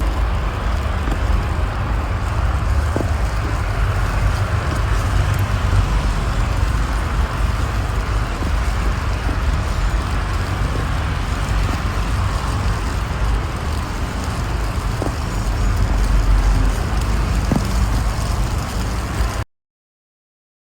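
Steady vehicle rumble with a hiss over it, cutting off suddenly about a second before the end.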